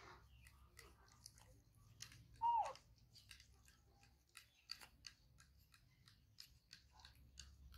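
A baby macaque gives one short squeaky call about two and a half seconds in, its pitch dropping. Faint irregular clicks and ticks run through the otherwise quiet background.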